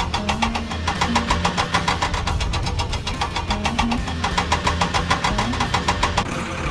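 A large truck's diesel-type engine running with a rapid, even chugging knock, about eight beats a second, over a low rumble.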